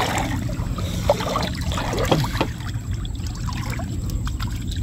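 River water trickling and sloshing around a person standing chest-deep in it, with small irregular splashes.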